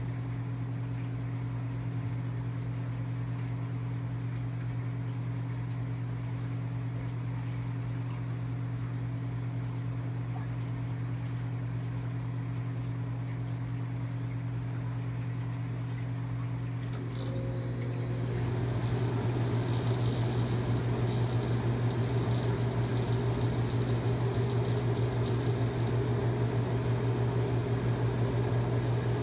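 Steady low electrical hum of aquarium equipment, a mains-powered pump. About 18 seconds in it grows louder and rougher, with a rushing noise added.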